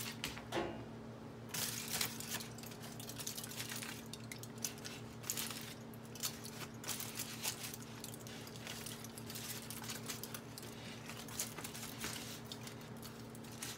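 Faint crinkling of aluminium foil and scattered soft taps as cooked sausages are picked out of the foil and laid on a wooden cutting board, over a steady low hum.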